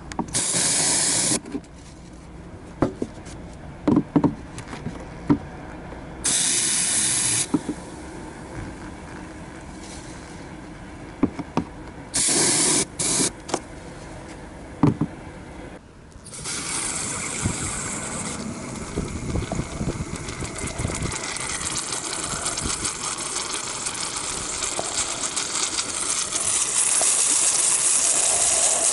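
Aerosol can of foaming air-conditioner cleaner spraying into a car's evaporator: three short hissing bursts, then a long continuous spray from about halfway through, with a few light knocks between the bursts.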